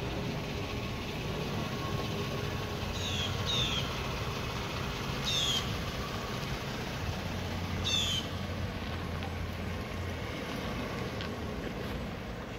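Hyundai Santa Fe SUV's engine running after an engine bearing repair, a steady low rumble as the vehicle pulls away slowly. A bird calls four times over it, each a short falling note: twice about three seconds in, then around five and a half and eight seconds in.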